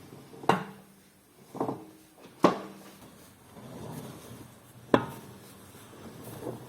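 Range Rover Evoque front wheel crunching and knocking, with four sharp knocks and a softer grinding rustle between them. The crunch is typical of a worn front hub bearing, which the mechanic means to replace.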